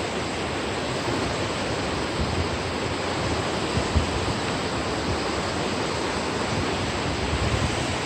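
Steady rushing noise of flowing river water, with some uneven low rumble from wind on the microphone.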